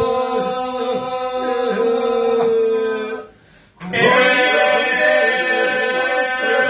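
A group of men singing an Albanian Lab polyphonic song a cappella, the voices over a long held drone. The singing breaks off for a moment a little past three seconds in, then all come back in together.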